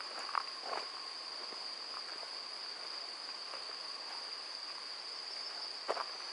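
Crickets singing in a meadow: a steady, high, unbroken trill. A few short crunches, footsteps on a gravel path, come near the start and again near the end.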